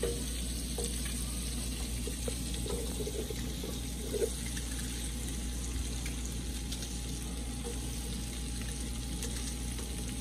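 Butter melting and onion slices sizzling steadily in a pan on an electric burner, with a few faint ticks in the first half as onion is sliced over the pan.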